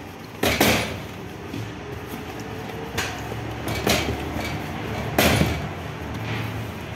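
Lumps of bread dough slapped and set down on a flour-covered bench as they are shaped by hand: about five dull thuds, the loudest about half a second in and again about five seconds in, over a low steady hum.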